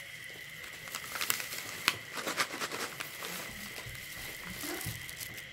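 Plastic snack packet crinkling as it is picked up and handled, with sharp crackles between about one and three seconds in. A steady high-pitched tone runs underneath.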